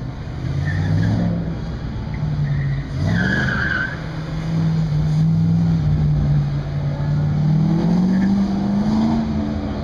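Vehicle engine working hard through an autocross course, its pitch climbing and dropping as the driver accelerates and lifts, with a brief tire squeal about three seconds in and a steady rise in revs near the end.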